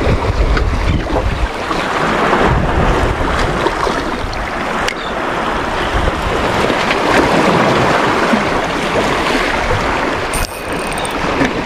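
Small sea waves washing and splashing against shoreline rocks, with wind buffeting the microphone.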